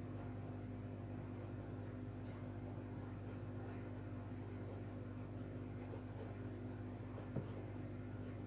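Pencil scratching on drawing paper in short strokes, over a steady low electrical hum, with one small tap about seven seconds in.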